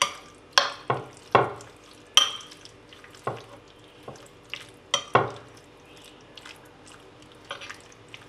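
A steel spoon stirring raw marinated chicken in a ceramic bowl, clinking and scraping against the bowl in irregular strokes. The clinks are busiest in the first few seconds, pause for a while, and pick up faintly near the end.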